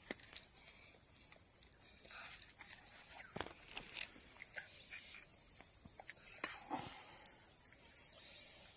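Faint, steady high-pitched chirring of insects, with scattered light clicks and taps throughout.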